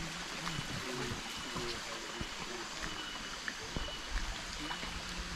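Steady watery hiss of light drizzle falling on forest foliage and a stone path, with scattered small drips.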